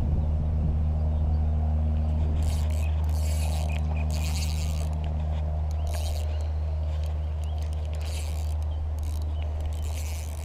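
Steady low motor hum that holds one pitch throughout, with several short scraping, rustling bursts over it from about two seconds in.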